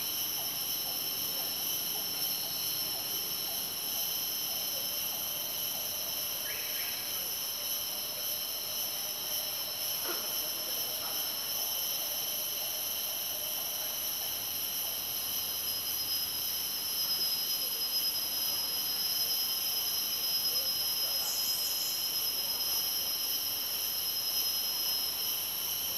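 Rainforest insect chorus: several insects each holding a steady high buzzing tone at its own pitch. An extra high tone joins a little past halfway and drops out near the end, and a few short chirps come and go.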